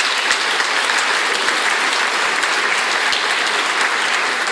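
Large audience applauding: dense, steady clapping from many hands.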